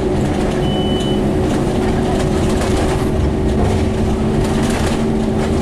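Scania N230UD double-decker bus's five-cylinder diesel engine and ZF Ecomat gearbox running hard, heard from inside the bus, with a steady whine over the engine's rumble. A short high beep sounds once, about two-thirds of a second in.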